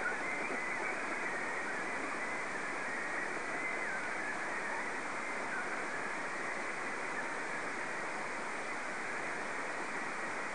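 Steady shortwave radio static and hiss from a Perseus SDR receiver tuned in AM to a weak signal on 3275.9 kHz, muffled with little treble. A faint wavering whistle sits at the top of the hiss for the first few seconds.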